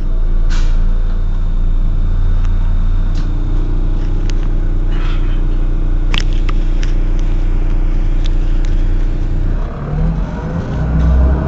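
Heuliez GX 127 city bus's diesel engine idling steadily, with a few short clicks; about ten seconds in the engine note changes and starts to rise.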